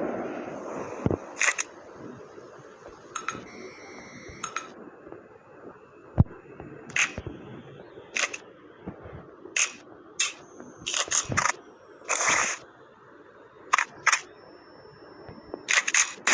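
Irregular metal clicks, snaps and clacks of a Saiga 12K shotgun's parts being handled and fitted together, with a short sliding scrape about twelve seconds in.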